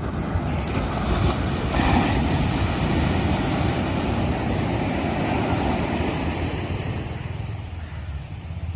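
Ocean surf: a wave breaks on the beach about two seconds in, and the wash of water holds and then slowly fades, over a steady low rumble.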